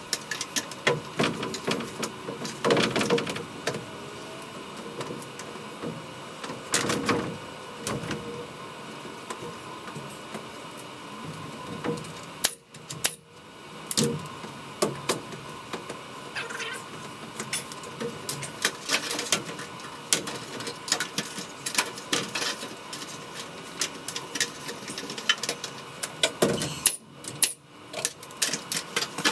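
Carpentry work on wooden roof trusses: a run of irregular knocks, taps and clicks, some in quick clusters.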